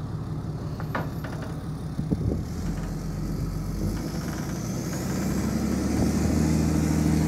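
Pickup truck engine running, its note getting louder and heavier about two-thirds of the way through as it takes up the strain of towing a man-lift on a strap.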